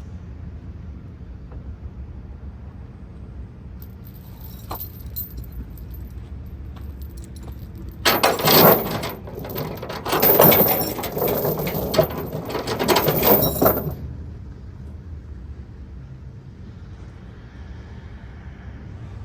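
Steel tie-down chain rattling and clanking as it is pulled and handled during load securement: a few light clinks, then about six seconds of loud clattering links starting about eight seconds in. A low steady rumble runs underneath.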